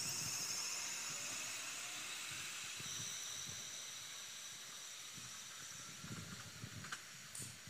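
ScotRail Class 380 Siemens Desiro electric multiple unit pulling away, its high-pitched whine and hiss fading as it moves off into the distance.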